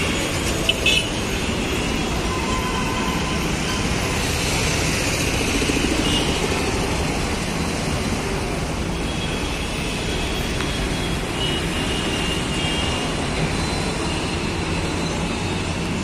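Steady road traffic at a busy junction: cars and trucks running past, with a couple of short sharp sounds about a second in.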